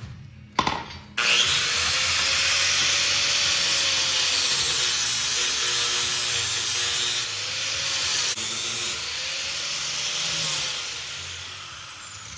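Handheld power tool running under load for about ten seconds, its motor whine dipping and recovering in pitch as it bites, with brief breaks in the middle, after a couple of sharp clicks at the start.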